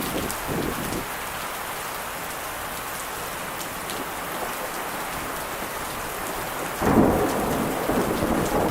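Steady rain hissing during a thunderstorm. About seven seconds in, a sudden clap of thunder breaks in and keeps rumbling.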